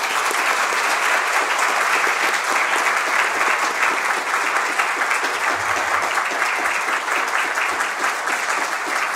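Audience applauding, a steady wash of many hands clapping at once.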